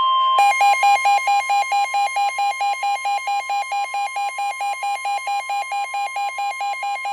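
NOAA Weather Radio warning alarm tone, a steady 1050 Hz tone sounded before a flash flood warning. From about half a second in, a rapid electronic beeping of about four beeps a second rides on top of it.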